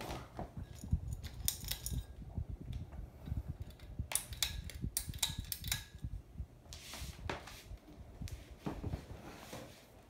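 Hometrends ceiling fan's pull-chain switch being worked up to high speed: a series of sharp clicks with the chain jangling against the brass switch housing, over the low steady hum of the running motor.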